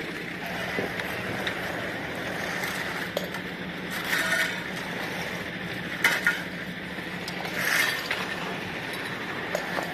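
Metallic clinks and pops, three louder ones about four, six and eight seconds in, over a steady hum and rushing at a fire in a container of scrap metal.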